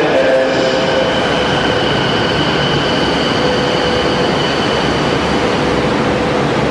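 Odakyu Series 4000 electric train pulling into a subway platform and braking to a stop. It makes a steady rumble with a steady high whine over it.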